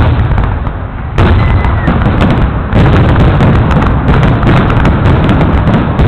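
Fireworks bursting close by in a rapid, loud barrage of overlapping booms and crackles. It grows louder about a second in and again a little before the middle.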